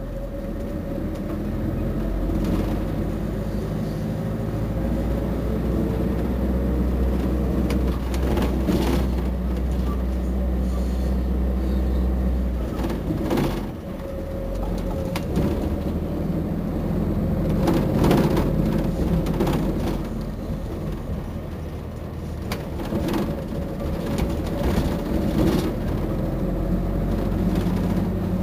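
Otokar Navigo T midibus running on its route, its engine a low steady drone that eases off and dips briefly about 13 seconds in before building again. Scattered sharp clicks and knocks, rattles of the bus, come throughout.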